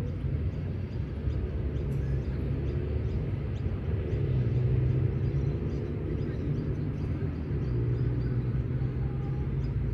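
Steady low outdoor rumble, like distant road traffic, with faint hums that drift slightly in pitch.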